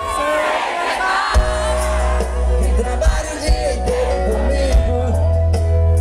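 Live band amplified through a PA: electric guitar, drums, keyboard and heavy bass behind a male lead vocal. The bass drops out briefly about a second in, then comes back.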